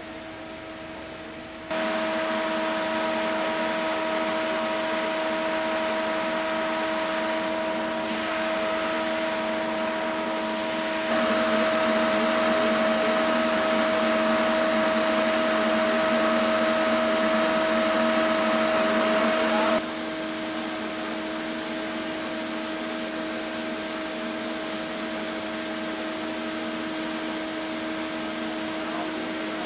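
A motor-driven machine running steadily: a constant droning hum under a rushing hiss. It steps up in loudness shortly after the start and again about a third of the way through, then drops back about two-thirds of the way through.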